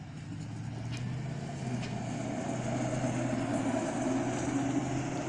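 Hi-rail pickup truck running along the railroad track: a steady engine hum and the noise of its wheels on the rails, growing louder as it comes by.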